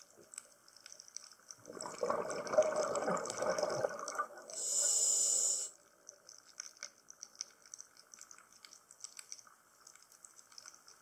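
Scuba diver breathing through a regulator underwater: about two seconds of gurgling exhaled bubbles, then a short high hiss as the demand valve feeds the inhale. Faint scattered crackling of the reef runs through the quieter stretches.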